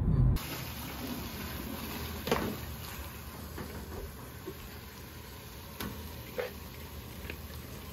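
Squid stir-fry simmering in a pan on a gas burner, a steady hiss with a few knocks and clinks of cookware and utensils, the loudest about two seconds in.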